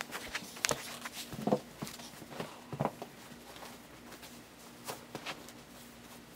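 Soft taps and rustles of a Nike knit running shoe being handled and put on over carpet: a quick run of light knocks in the first three seconds, then two more about five seconds in.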